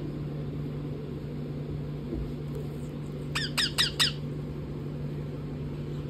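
Rose-ringed parakeet giving a quick run of about five short, sharp squawks, each dropping in pitch, about three and a half seconds in, over a low steady hum.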